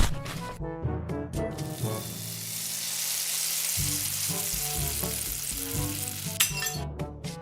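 A steady hiss, starting about a second and a half in and cutting off suddenly near the end, over light background music with plucked or keyboard notes.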